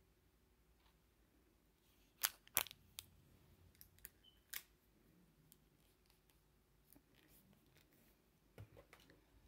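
Small objects being handled: a few sharp clicks and taps, the loudest pair about two to three seconds in, a couple more around four seconds and another cluster near the end, over quiet room tone.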